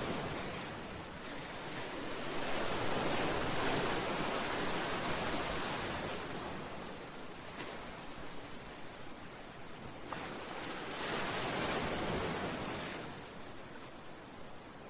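Sea waves washing against a seawall and breakwater, a steady rush of surf that swells twice and eases between.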